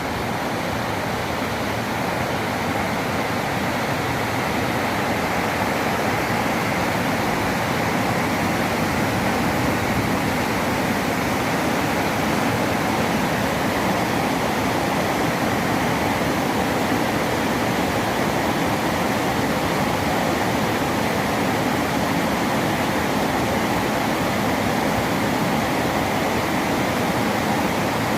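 Waterfall: water pouring and rushing in a steady, unbroken noise.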